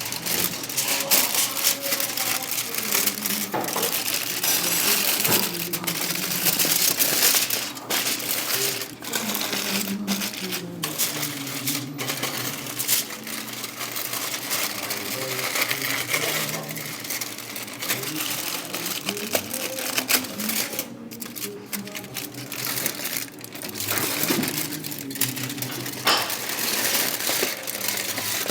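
Busy food-prep handling noise: dense crinkling with many sharp metallic clicks and clinks throughout.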